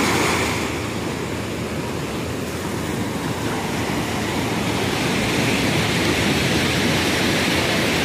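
Ocean surf breaking and washing up over the sand at the water's edge, a steady rushing of waves.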